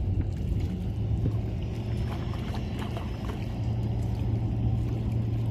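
A boat engine running with a steady low hum that grows stronger about a second in.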